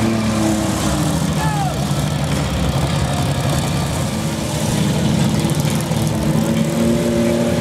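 Demolition-derby minivan engines running hard as the vans push against each other. The steady engine hum turns rougher for a few seconds in the middle, then settles back.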